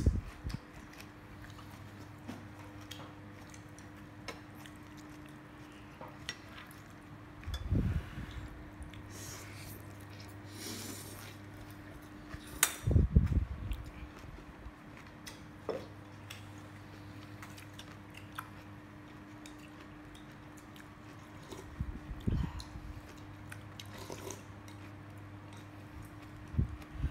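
Metal spoon and chopsticks clinking and scraping against a ceramic bowl of noodle soup while eating, with scattered light clicks and a few louder bursts of eating noise. A steady low hum runs underneath.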